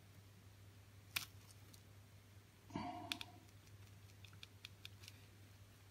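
Near silence with a steady low hum, broken by a sharp click about a second in, a short scuffing sound near the middle, and a run of faint small ticks after it.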